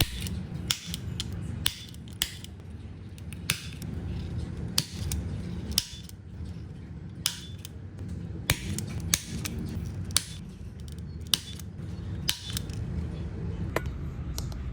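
Sharp clicks and taps of a metal repair tool working on the cracked back glass of an iPhone 11 Pro Max, coming about once a second at uneven intervals, over a steady low hum.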